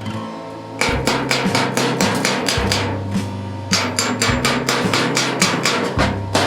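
Rapid hammer blows on metal, several a second, with a short pause about halfway through, over background music with a low bass line.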